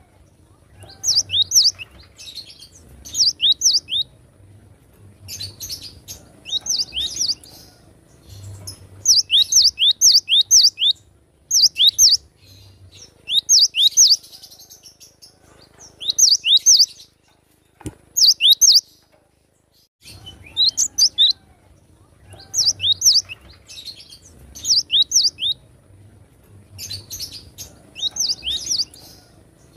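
Gelatik batu (cinereous tit) singing: short bursts of three to five quick, falling whistled notes, repeated every second or two with brief pauses between phrases.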